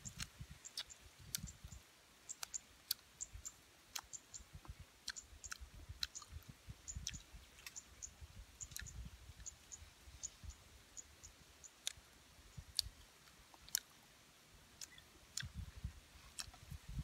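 Eating steamed shrimp: chewing, with scattered sharp clicks as the shrimp shells are cracked and peeled by hand.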